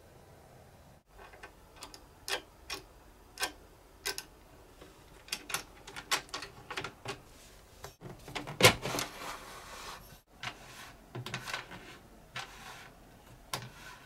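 Small metal parts clicking and knocking, M6 T-bolts with washers and O-rings handled and fitted into the slot under a drill-press table fence. Past the middle there is one louder clunk with a short scrape after it.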